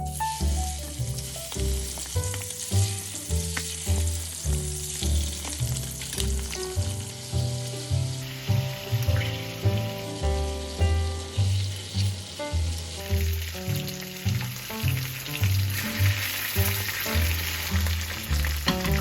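Food frying in a pan, a steady sizzle that grows louder near the end, under background music with a repeating bass line.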